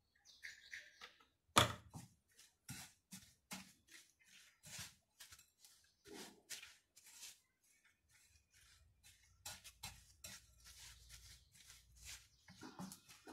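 Silicone spatula scraping and knocking against a glass bowl while stirring crushed biscuits and sweetened condensed milk into a crumbly dough. The scrapes and taps are irregular, and the sharpest comes about one and a half seconds in.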